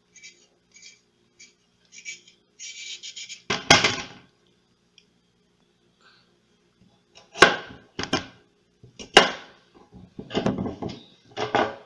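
A metal vegetable peeler scraping down a carrot in short strokes, about one or two a second. Then a series of loud knocks and clatters against a plastic cutting board, the first about four seconds in and several more in the last few seconds.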